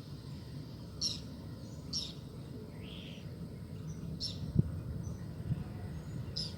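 A bird calling in short, high chirps, one every second or two, over a steady low rumble. A single sharp knock comes about two-thirds of the way in.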